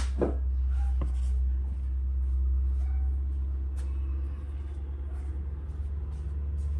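Steady low background rumble, with a few faint light clicks of a spark plug socket and extension being handled and turned by hand.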